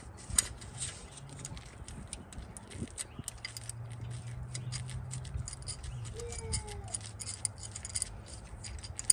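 Light metallic clicks and clinks of a wrench being worked on a bolt, coming irregularly, with one sharper click about half a second in.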